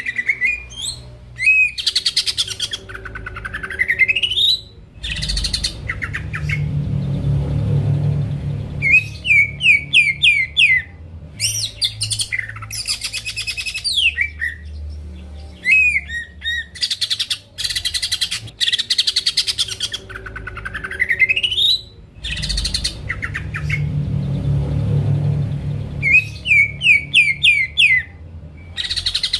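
Greater green leafbird (cucak ijo) singing loudly without a break. The song mixes fast buzzy trills, long rising whistles and runs of quick clipped notes, and the same sequence comes round again about every 18 seconds, as in a looped lure recording.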